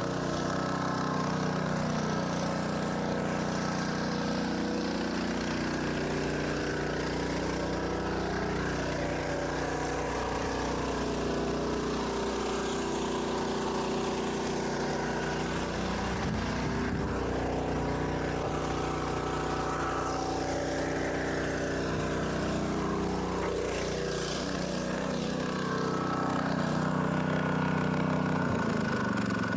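Small engine running steadily near idle, its pitch shifting up and down a few times.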